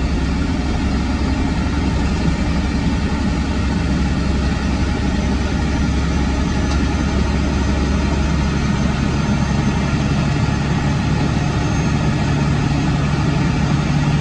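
Freightliner Classic log truck's diesel engine running under way, heard from inside the cab as a steady low drone with road noise from the wet pavement. About eight seconds in, the engine's note changes and a steadier hum comes in.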